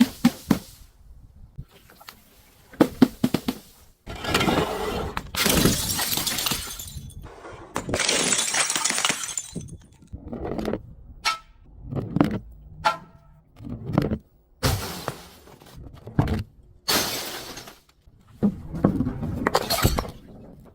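Glass bottles breaking and being crushed: a series of separate shattering, crunching bursts every second or two, some leaving a short ringing of glass.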